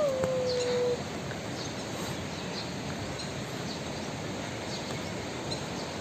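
Birds chirping faintly over a steady outdoor background hiss. Right at the start a single held tone rises, then stays level and stops about a second in.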